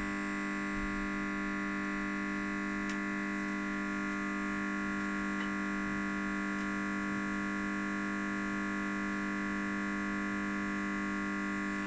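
Steady electrical hum made of several fixed tones, unchanging throughout, with no other sound.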